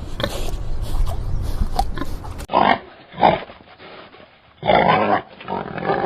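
Pig calls from two spliced recordings. The first runs with a low rumble underneath, then about two and a half seconds in it cuts to a second recording of four short, loud calls.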